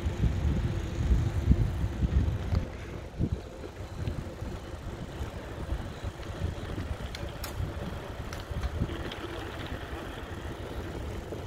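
Wind buffeting the microphone and tyre rumble while riding a bicycle along a paved path. The gusty low rumble is strongest in the first few seconds, with a few light clicks partway through.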